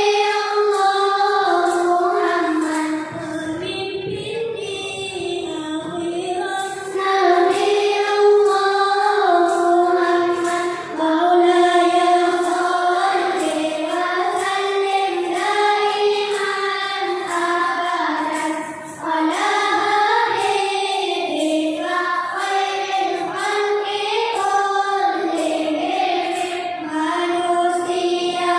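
A choir of about nine-year-old schoolchildren singing a Malay nasyid, an Islamic devotional song, with many voices together on one melody line and short dips between phrases.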